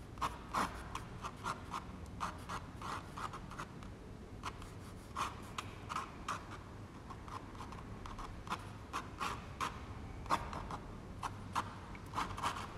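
Ink pen scratching across rough watercolour paper in quick, short sketching strokes, coming unevenly about every half second.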